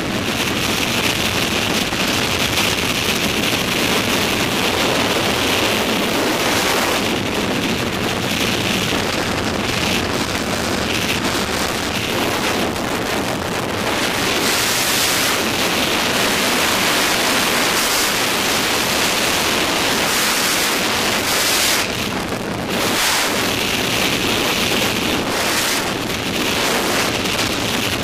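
Freefall wind rushing over the camera's microphone: a loud, steady rush of noise that shifts slightly as the camera flyer moves, dipping briefly about three-quarters of the way through.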